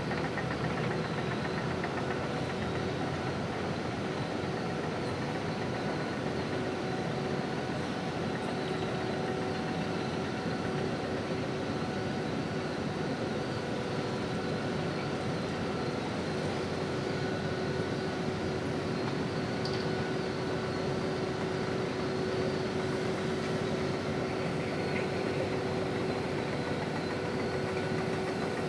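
Steady drone of ship engines and machinery running, with several held tones over a constant rumble.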